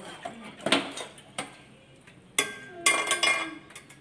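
Metal pipe clanking: a couple of lighter knocks, then a sharp ringing clank about two and a half seconds in and a quick run of ringing clanks just after three seconds.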